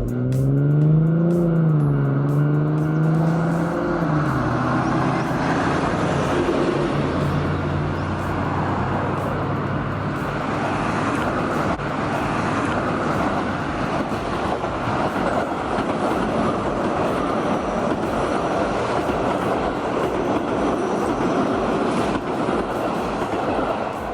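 Steady vehicle running noise, with a pitched motor hum that rises and falls over the first few seconds before giving way to an even rumble.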